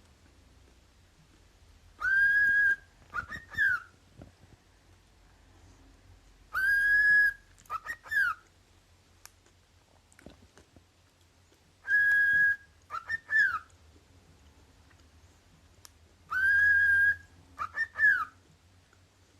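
Cockatiel whistling the same short call four times, a few seconds apart: each time a long, steady high note followed by two or three quick notes that rise and fall.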